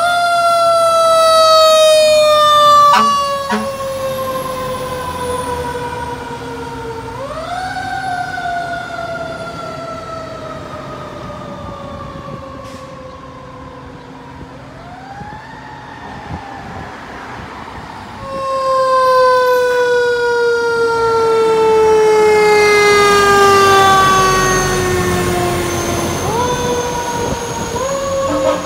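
Fire apparatus siren wailing as the fire engine and ladder truck respond: each cycle winds up quickly, then falls slowly over several seconds, several times over. The trucks' engines can be heard underneath as they pull out.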